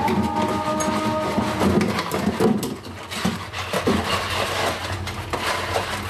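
Gloved hands scrubbing and handling a clear plastic refrigerator storage container and its strainer basket in a sink: irregular plastic knocks, clatter and rubbing.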